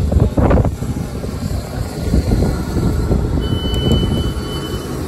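Low rumble of a Class 455 electric train standing at the platform, with a steady high beep starting about three and a half seconds in and holding to near the end: the door alert as the passenger door-open button is pressed.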